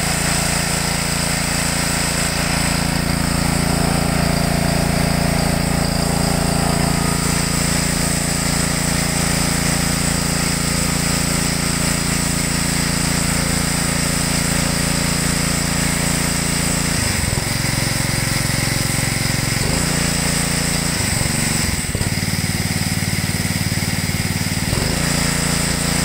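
Honda GC160 single-cylinder engine driving a pressure washer pump, running steadily under load with the high-pressure water jet hissing. It is running properly after its dirty carburetor was cleaned. In the second half the engine note shifts briefly a few times.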